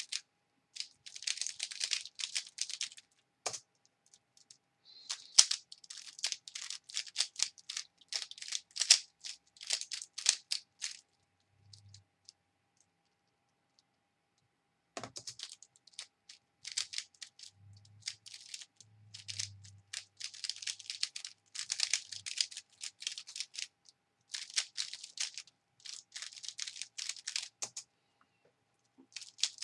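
Plastic 3x3 speedcube being turned fast by hand: bursts of rapid clicking and clacking from the layers snapping round. There is a pause of about four seconds near the middle, then the turning starts again.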